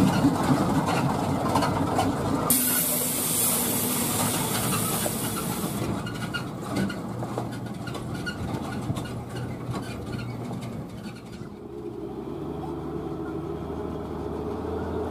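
Old dump truck engines running, with a high hiss lasting about three seconds near the start. In the last few seconds the sound settles into a steadier engine drone with an even pitch.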